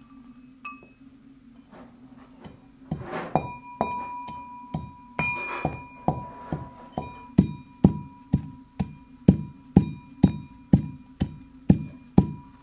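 Brass mortar and pestle pounding walnuts: scattered strikes from about three seconds in settle into a steady beat of about two a second, each strike ringing with a bright metallic tone.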